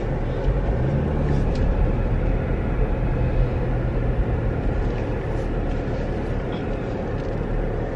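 Car cabin noise while driving slowly: the engine hums under a steady rush from the air conditioning blower.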